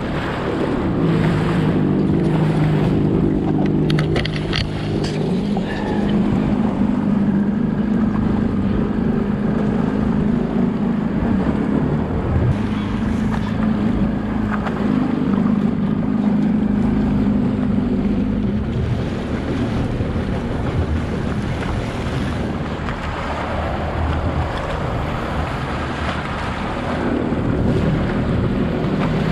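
Jet ski engine running under way, a steady drone that eases to a lower pitch in the second half and picks up again near the end, over the rush of water against the hull and wind on the microphone.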